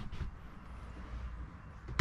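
Quiet pause holding only a faint, steady low rumble and hiss of background noise, with no distinct event.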